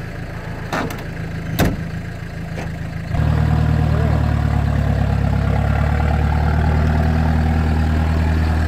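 Off-road vehicle's engine idling steadily, with a few sharp knocks in the first two seconds. About three seconds in it becomes suddenly louder and stays steady, heard close by the wheel.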